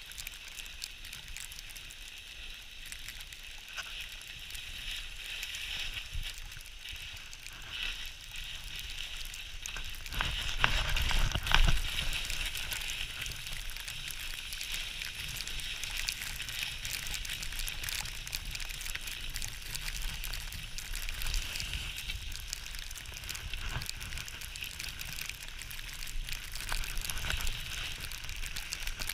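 Skis sliding and scraping over snow during a downhill run, a steady crackling hiss, with a louder low rumble about ten seconds in.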